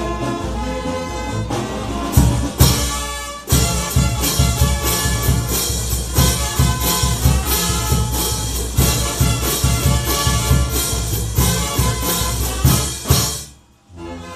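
Brass band playing: trumpets and other brass over a steady beat of bass drum, snare drum and crash cymbals. The music cuts off abruptly about a second before the end, then resumes more quietly.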